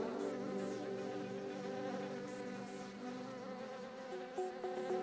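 Flying insect's wings buzzing, a steady buzz.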